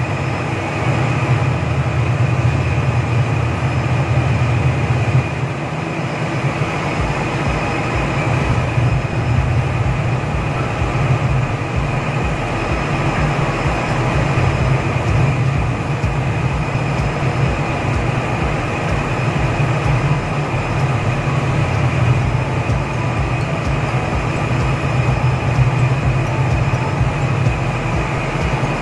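Steady drone of a ship's machinery: a loud low hum with several steady tones above it. A fast low pulsing joins about seven seconds in.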